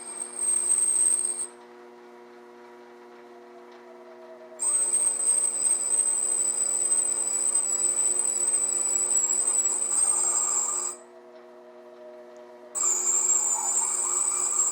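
Benchtop metal lathe running with a steady motor hum, while the cutting tool works a large 180 mm workpiece. A high-pitched whine from the cut comes and goes: briefly at the start, then for about six seconds, then again near the end.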